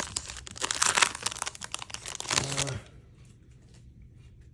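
Trading-card pack wrapper being torn open and crinkled, stopping about three seconds in; after that, only faint ticks.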